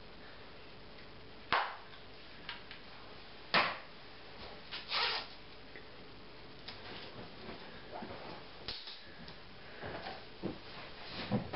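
A few sharp clicks and knocks over a steady hiss, the loudest about one and a half and three and a half seconds in, followed by softer scattered rustling and light knocks.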